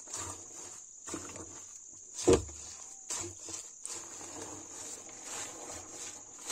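Wooden stick pushing and pressing a drum full of wet leaves down inside a plastic drum: rustling strokes about once a second, with one loud thump a little over two seconds in.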